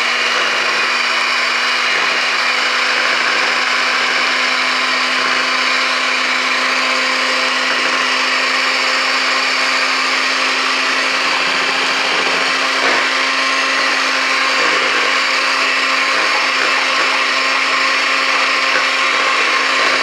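Electric hand mixer running at a steady speed, its twin beaters whisking pancake batter in a bowl: a constant motor whir with a steady low hum.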